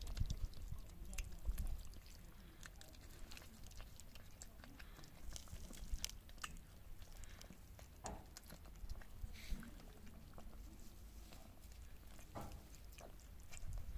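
Cats lapping milk from a metal bowl: a steady run of quiet, wet tongue clicks and smacks.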